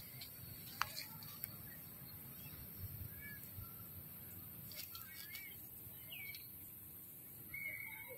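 Quiet forest ambience with scattered short chirping calls that rise and fall, and one longer held call near the end. A few sharp clicks come in the first couple of seconds.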